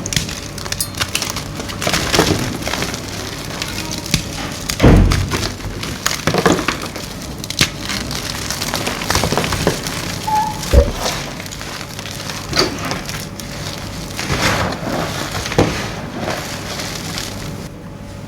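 Blocks of gym chalk being crushed and crumbled, a run of irregular crunches, cracks and gritty crumbling. The sharpest crunches come about five seconds in and again about eleven seconds in.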